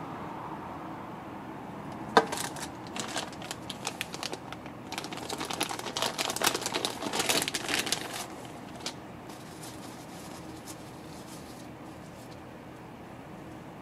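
Thin plastic packaging bag crinkling as it is handled, opened and a charging cable pulled out of it, busiest in the middle and dying away after that. A single sharp click about two seconds in, just before the crinkling starts.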